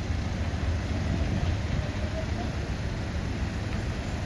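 Steady low rumble of a delivery lorry's engine running close by.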